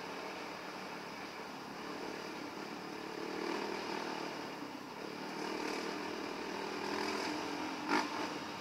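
A Yamaha WR450F's single-cylinder four-stroke engine running under a rider on a trail, its revs rising and easing. Near the end there is a short loud burst.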